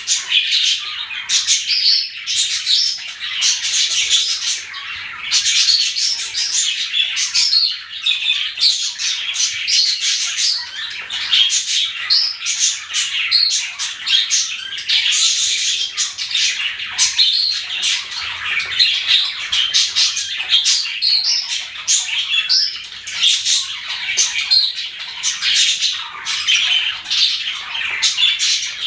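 Several pet budgerigars chattering and squawking together, many short high chirps and warbles overlapping in a constant stream.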